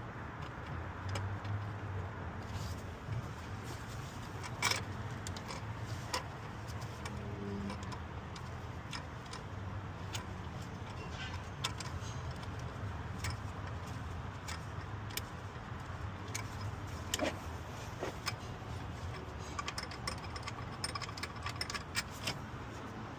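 Scattered metallic clicks and clinks of hand tools and bolts while a replacement alternator is fitted and bolted into its bracket, over a steady low hum. The clicks come irregularly and cluster more densely near the end.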